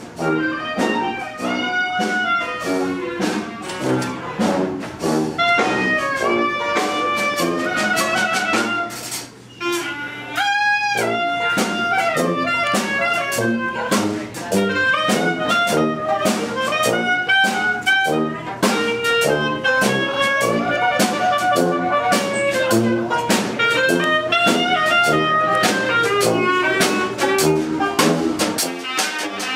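A live jazz band playing: horns carrying the melody over a drum kit, with a brief dip a little past the middle before a strong held horn note.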